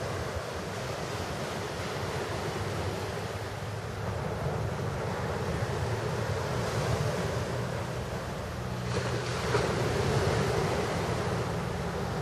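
Small sea waves washing and lapping against a rocky breakwater, with wind buffeting the microphone as a low rumble. A louder wash of water comes about nine seconds in.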